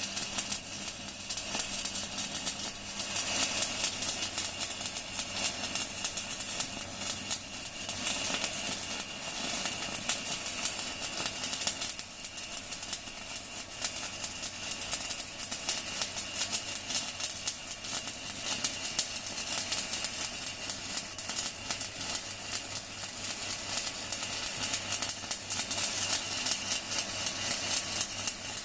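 Stick (MMA) arc welding with a 4 mm UONI basic electrode at 160 A: a steady, dense crackling and sputtering of the arc. The welding inverter is running at its maximum current under continuous load.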